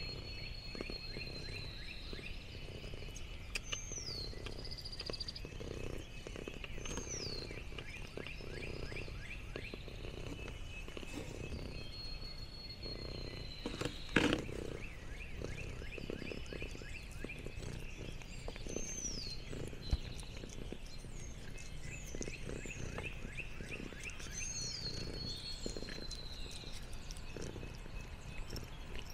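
Outdoor wildlife calls: high whistled notes that slide downward, each a second or so long and coming every few seconds, over a steady trilling chorus. Soft rustling runs underneath. One sharp knock about halfway through is the loudest sound.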